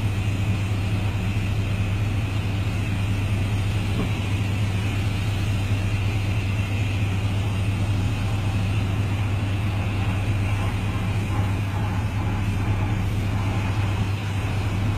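Steady low hum of a running motor over an even hiss, unchanging throughout.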